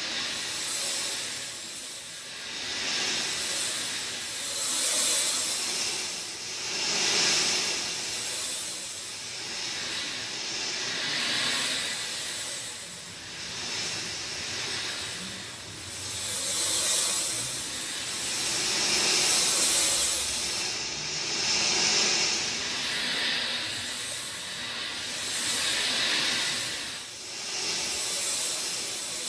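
Rain falling steadily, a dense hiss that swells and eases every few seconds.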